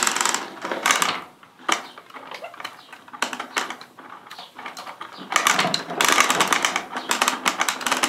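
Hand-cranked wooden quill winder (caneleiro) spinning, a fast whirring rattle as linen thread winds onto the quill. It comes in spurts, loudest about a second in and again over the last few seconds.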